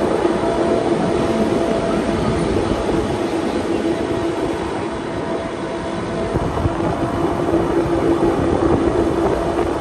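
Electric rack-railway train of the Wengernalpbahn running steadily, heard from aboard: a continuous rumble and rattle of the cars with a steady motor hum, easing slightly about halfway through before building again.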